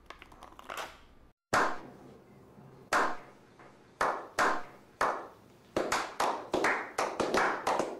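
Slow clap by a small group of men. Single claps come about a second apart, then quicken into brisk applause over the last couple of seconds.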